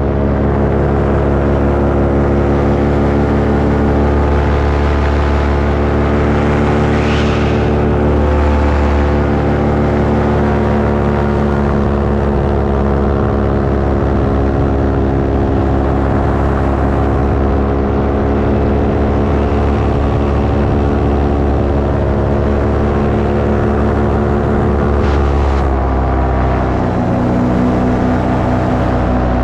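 Paramotor engine and propeller running steadily in flight, loud and even. About 26 seconds in the pitch drops as the throttle is eased back.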